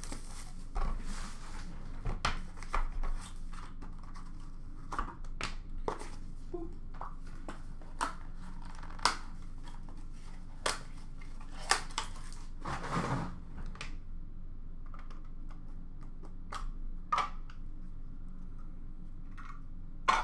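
Hands opening and handling a cardboard hockey card box and its packaging: scattered taps, scrapes and rustles, with a longer, louder rustle about thirteen seconds in.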